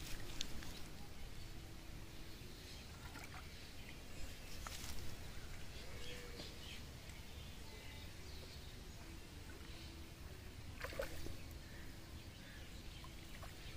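Outdoor ambience: a steady low rumble with a few brief sharp noises, about five and eleven seconds in, and faint distant calls.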